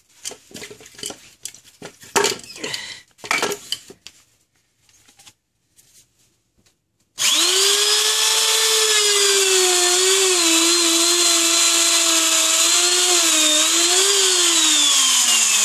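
Handheld electric mushroom drill (a high-speed pistol-grip shiitake inoculation drill) with its stop-collar bit boring into a hardwood log. After about seven seconds of light knocks and handling, the motor starts suddenly and runs with a loud steady whine that dips slightly under load, then winds down, falling in pitch, near the end. The wood is hard enough to scorch slightly under the bit.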